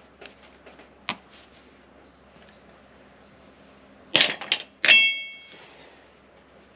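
Two loud metal clanks about a second apart, near the end, each ringing briefly: metal weights being set down after being lifted off a glued door panel. A small click comes about a second in.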